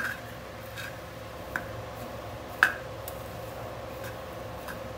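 A spatula stirring seasoned puffed rice in a pan, with a handful of sharp taps of the spatula against the pan, the loudest a little past halfway. A faint steady hum runs underneath.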